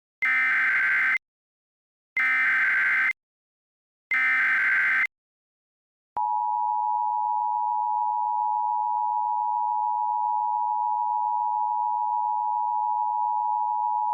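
Emergency Alert System SAME header: three one-second bursts of data tones with about a second of silence between each. About six seconds in, the EAS two-tone attention signal (853 and 960 Hz) starts and holds steady. Together they are the start of a tornado warning alert.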